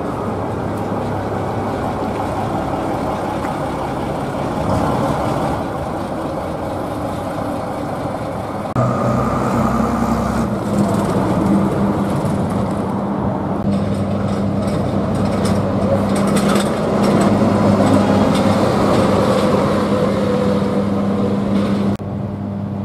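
Diesel engines of single-deck buses running as they drive past. About nine seconds in the sound changes abruptly to a different bus engine with a steady low hum.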